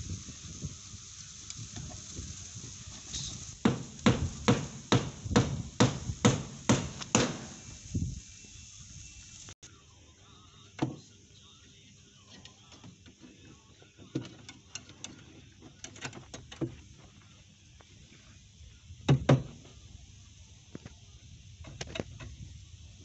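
Hand hammer knocking on a foundation formwork box: a quick run of about ten sharp blows, roughly two or three a second, then scattered lighter knocks with a louder double knock later on.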